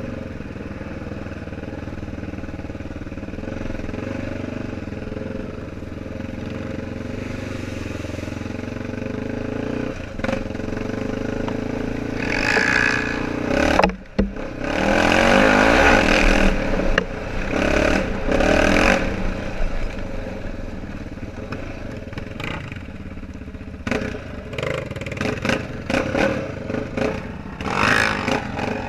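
ATV engine running as it rides a trail. From about twelve to nineteen seconds in there is a louder, noisier stretch with a brief drop near fourteen seconds, and bumps and clatter follow toward the end.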